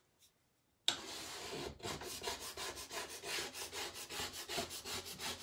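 Plastic scraper rubbing in quick, even strokes over a wet chalkboard, scraping off soaked chalk paste. The strokes start about a second in.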